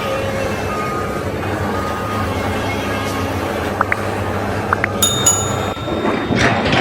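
A vehicle's reversing alarm beeping about once a second over a steady engine hum. A couple of sharp clinks follow, and a different high ringing tone sets in about five seconds in.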